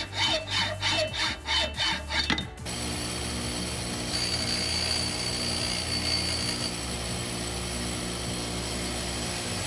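A hacksaw is cutting through a steel threaded stud clamped in a bench vise, at about two to three strokes a second. About two and a half seconds in, this gives way to a bench grinder running steadily, with a higher grinding tone from about four to seven seconds in as the cut end of the stud is held to the wheel.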